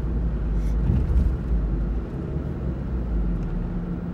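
Car engine and tyre noise heard from inside the cabin while driving, a steady low rumble that eases slightly about two seconds in.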